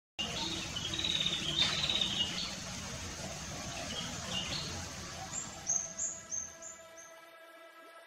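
Birds chirping over a steady rush of water, with a quick run of high, falling whistled notes just past the middle. The water and birds fade out near the end as soft sustained music comes in.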